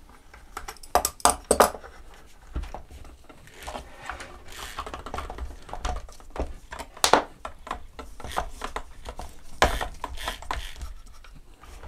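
Irregular clicks and light knocks of hands loosening the clamp on a wooden drill stand and shifting an electric drill in it, with a few louder knocks along the way.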